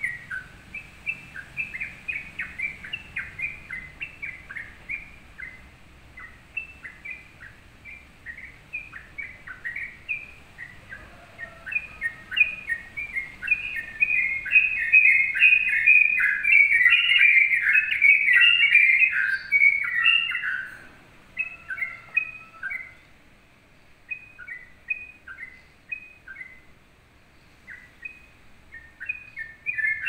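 Caged yellow-vented bulbul (crucukan) singing in full voice: a rapid, chattering run of short bubbly notes. The song is densest and loudest about halfway through, thins out to scattered phrases, then picks up again near the end.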